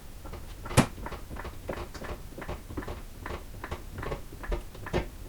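Floor jack being pumped to lift a car: a run of short clicks and creaks, about three a second, with a sharper knock about a second in. It creaks a lot.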